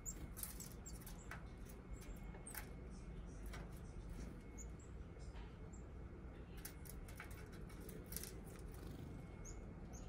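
Black-capped chickadees giving short, faint, high call notes at scattered moments, mixed with light sharp clicks and taps.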